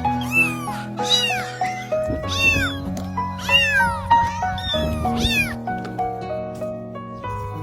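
Cat meowing over and over, short rising-and-falling meows about two a second that stop after about five and a half seconds, over background music with a stepped melody.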